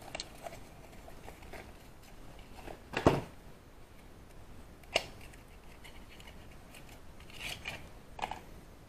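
Handling noises as a new spark plug is taken up and worked with: faint rubbing and a few light clicks and taps, the loudest about three seconds in, a sharp one about five seconds in, and a small cluster near the end.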